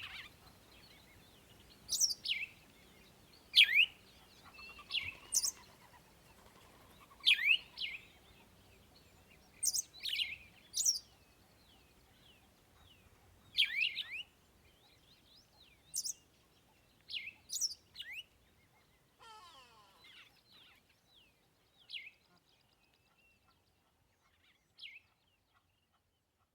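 Birds chirping: short, sharp calls that sweep steeply down in pitch, one every second or two, with fainter chirps in the background. The calls grow sparser and quieter toward the end.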